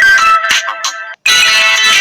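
Samsung Galaxy J7 Pro ringtones: a short melody of separate electronic notes stops about a second in. After a very short gap the next ringtone starts, a fuller tune.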